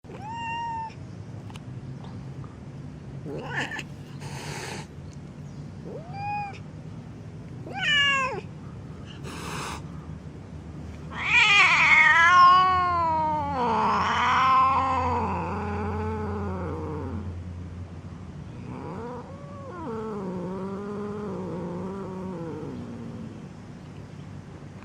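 Agitated domestic cat giving a few short meows and short hisses, then a long wavering yowl about halfway through, followed by a quieter drawn-out growling yowl.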